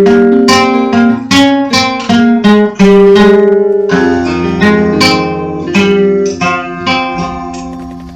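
Acoustic guitar picking a slow, dark-folk melody of ringing single notes and chords, about two or three plucks a second, dying away near the end.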